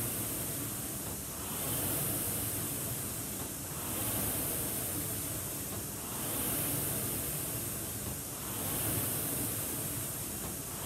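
Concept2 air rowing machine's fan flywheel whooshing as it is rowed at full slide, swelling with each drive stroke in a steady rhythm about every two and a half seconds.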